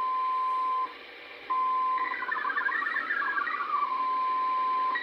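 MFSK digital-mode data signal from a shortwave receiver's speaker: a steady beep-like tone that cuts out briefly about a second in, then a run of rapidly hopping tones stepping up and down in pitch, then back to the single steady tone. The listener takes it for the Shortwave Radiogram's MFSK transmission, though he says his decoder is not on the right MFSK speed.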